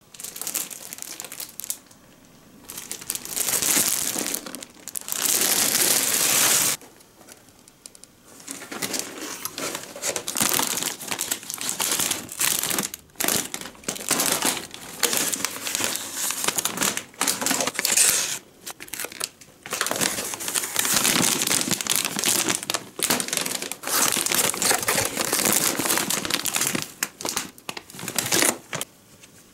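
Plastic wrapping and snack bags crinkling as they are handled and pulled out of a felt Christmas stocking, in bursts with brief pauses.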